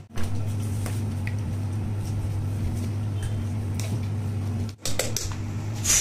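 A steady low hum with a few faint scraping clicks as a knife works at a coconut shell. The sound cuts out for a moment about five seconds in.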